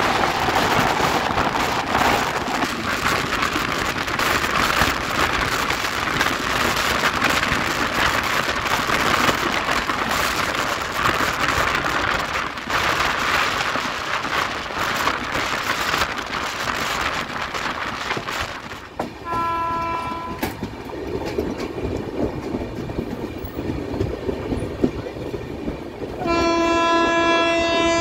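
A fast passenger train's wheels clattering over the rail joints, with a rush of wind and track noise heard from its open doorway, loudest while it passes another train on the next track. A train horn sounds briefly about two-thirds of the way through, and again, louder and held, for the last two seconds.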